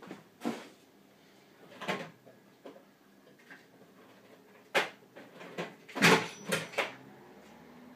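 Someone rummaging for a small tool: a string of separate knocks and clatters as things are moved and handled, with the loudest cluster of several knocks about six seconds in.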